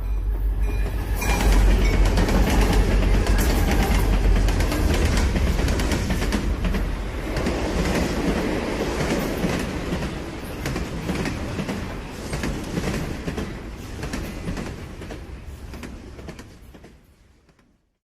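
Train passing by with a rapid clickety-clack of wheels over the rail joints. It is loudest a couple of seconds in, then slowly fades away and dies out to silence near the end.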